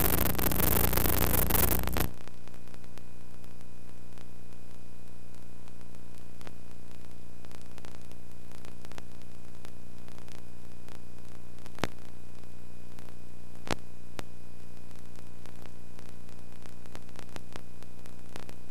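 Recording noise with no sound from the game: loud static hiss for about the first two seconds, cutting off suddenly to a steady electrical hum, with two faint clicks later on.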